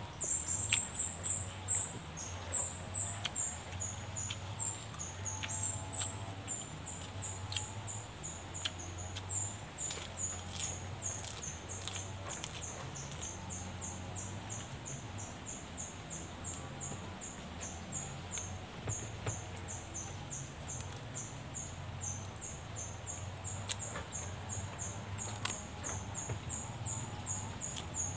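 A person eating with the fingers: chewing and picking at banana-leaf-roasted fish, with sharp clicks and crackles, most pronounced near the start and again about six seconds in. Behind it a thin, high chirp repeats steadily about three times a second.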